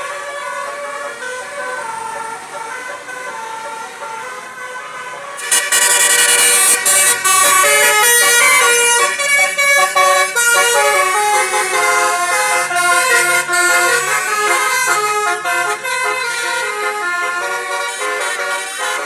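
Telolet horn on a tour bus: a multi-tone air horn playing quick runs of changing notes, turning much louder about five seconds in.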